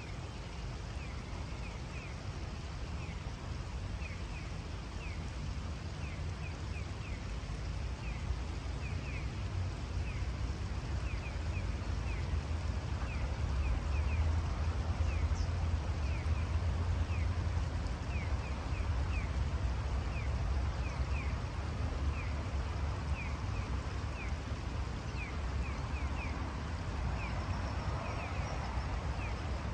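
Riverside ambience: a steady rush of shallow river water over a low rumble, with a small bird calling over and over in short, high chirps.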